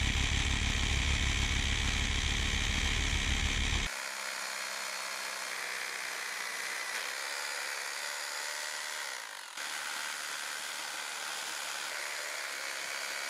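Power drill with a 14 mm masonry bit boring anchor holes deeper into the chimney's perforated brick. It runs steadily for about four seconds, then stops suddenly, leaving a much quieter steady hiss.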